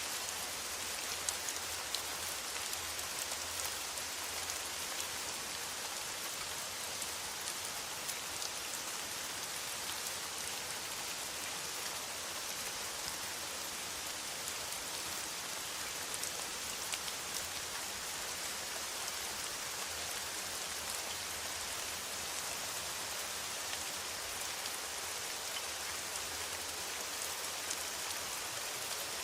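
Steady rain falling on a metal roof: a dense, even patter with scattered louder drop hits.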